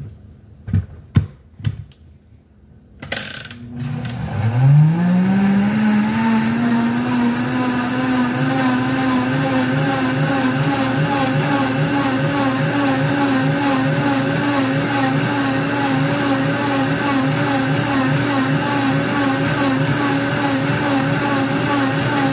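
Countertop blender running to clean itself with soapy water and a splash of vinegar. A few clicks come first, then the motor starts about four seconds in, its pitch rising and then holding steady as the sudsy water churns in the jar.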